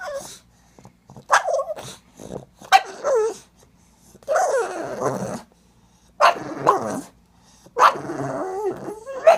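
Pug making a run of about six drawn-out, growly bark-like calls with wavering pitch, each about a second long with short gaps between. These are the sounds it makes when its butt scratch stops, asking for more.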